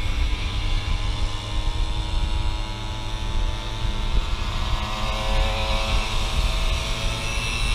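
Simson two-stroke moped engines running steadily on the move, a buzzing engine note under heavy uneven wind rumble on the microphone.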